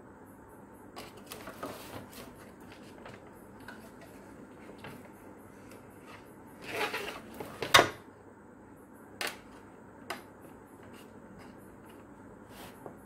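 A plastic fan casing being handled by hand: scattered clicks and scrapes of the plastic parts. A brief rubbing sound leads into one sharp knock a little past halfway, and a few single clicks follow.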